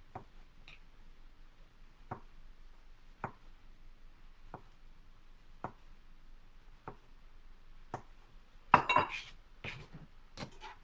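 Knife slicing through ripe plantain and tapping the cutting board, one short knock about every second, with a louder clatter of kitchenware near the end.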